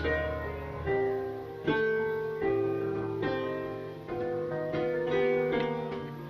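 Background instrumental music: a melody of notes that each start sharply and fade.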